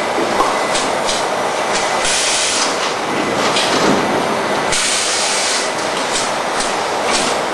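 Bottled water carton packing machine running, a steady mechanical clatter as its gripper heads pick up rows of bottles. Two longer bursts of air hiss come about two seconds in and near five seconds, with short hisses between.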